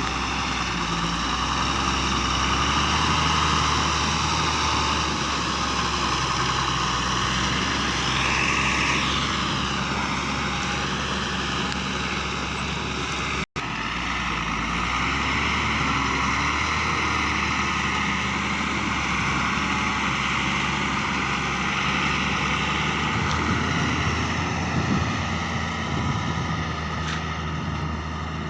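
Heavy diesel engine running steadily, with the sound cutting out for an instant about halfway through.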